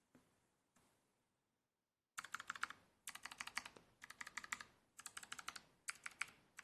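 Computer keyboard typing: a couple of faint single key clicks, then from about two seconds in quick runs of keystrokes, around ten a second, in bursts with short pauses between them.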